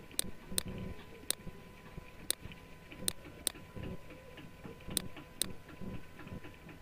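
Computer mouse buttons clicking, about eight sharp clicks at uneven intervals, over a faint steady electrical hum.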